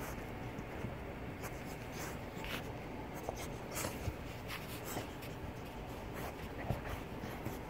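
Soft, irregular scratching and rustling: about a dozen short scrapes scattered over a faint steady hiss.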